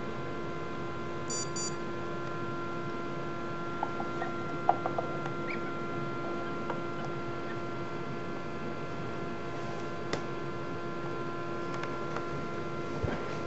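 Steady hum of an egg incubator, with a few short squeaky peeps and light clicks from an Embden gosling hatching out of its shell. The loudest come about five seconds in, with low knocks near the end.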